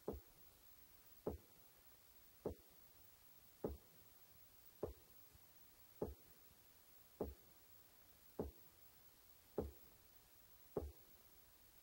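Ten short, sharp knocks at a slow, perfectly even pace, about one every 1.2 seconds, over a faint hiss.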